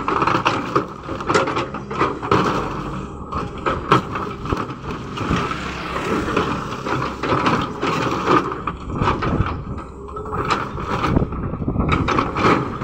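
Caterpillar hydraulic excavator's steel bucket scraping and clattering through loose stone, with rocks knocking against it at irregular moments, over the steady drone of its diesel engine running.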